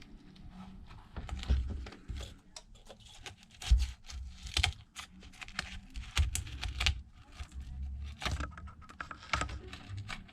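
Irregular small clicks and taps of tools and fingers handling an iPad, with a few low bumps against the work surface.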